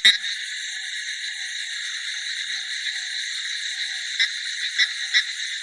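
Frog chorus: a steady, dense high-pitched trilling from many calling frogs, with a few louder single calls standing out near the end.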